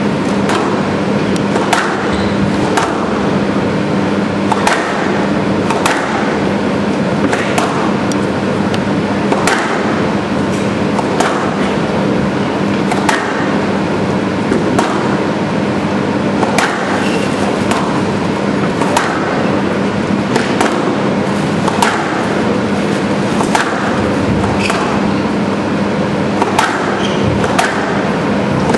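Squash rally: the ball cracking off the rackets and the walls about once or twice a second, in an irregular rhythm, over a steady background hum.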